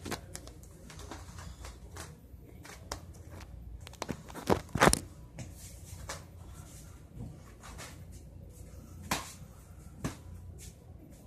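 Scattered sharp taps and slaps from hands batting and handling a soft plastic toy bubble, the loudest two close together about four and a half seconds in and another about nine seconds in.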